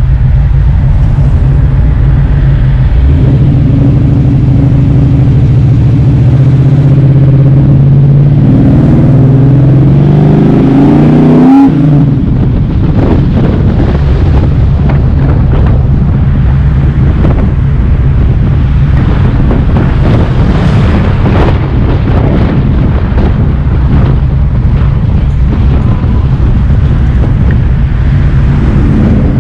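Car engine running loudly while driving; its revs climb steadily for a few seconds and then drop abruptly about twelve seconds in, after which it carries on with a rougher, choppier low rumble.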